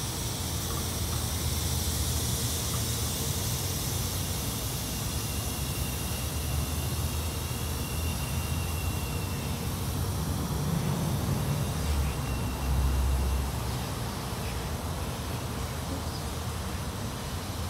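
Steady outdoor background noise, a high hiss over a low rumble, with a louder low rumble lasting about a second and a half some twelve seconds in.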